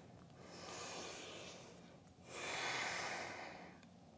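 A woman breathing slowly and softly: two long breaths of rushing air, the second louder.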